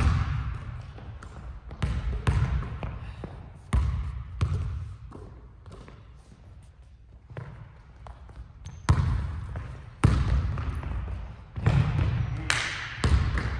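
Basketball bouncing on a hardwood gym floor: irregular dribbles and thumps, each ringing briefly in the large hall.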